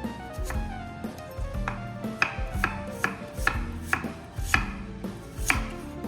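Knife chopping on a cutting board, about eight sharp uneven strikes from a couple of seconds in, over background music.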